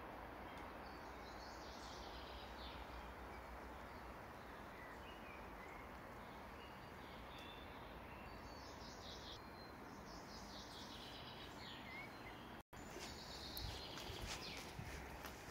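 Birds chirping and calling over a steady low hiss of outdoor ambience. The sound cuts out for an instant about three-quarters of the way through, followed by a few faint clicks.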